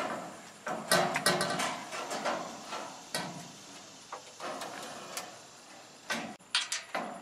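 Aluminum gazebo roof beam being handled and fitted into the frame: a run of irregular metal knocks, clanks and short scrapes, loudest about a second in and again near the end.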